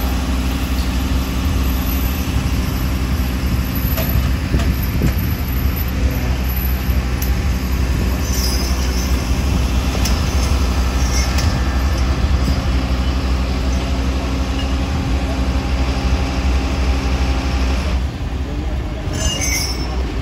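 Fire truck diesel engine running steadily at a fast idle: a loud low drone with a steady hum, with a few faint high squeals around the middle. The drone eases off slightly near the end.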